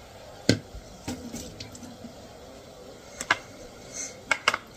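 Kitchen utensils and cookware clinking and knocking during cooking: a handful of short, sharp clinks, the loudest about half a second in and two quick pairs near the end.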